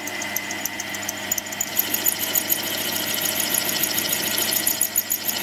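Milling machine running a 5/16-inch drill through a cast iron valve chest as it breaks into the drilled hole beyond: a steady motor hum with a high whine and rapid, regular ticking that gets louder about two seconds in.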